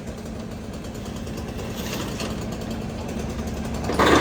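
Diesel engine of a fire truck running steadily at idle, a low even hum. A sudden loud burst of noise comes in at the very end.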